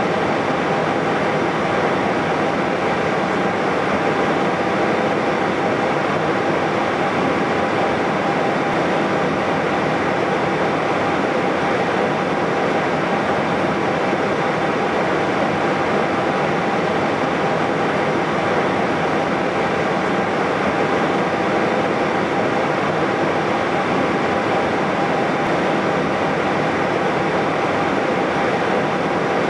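Steady cockpit noise of an Airbus A320-214 taxiing with its CFM56 engines at idle: an even rush with a faint steady whine.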